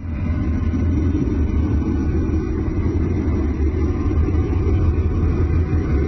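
Space-physics recording of the solar wind interacting with the magnetosphere of Uranus's moon Miranda, converted into audio: a steady, low, wind-like noise that begins abruptly.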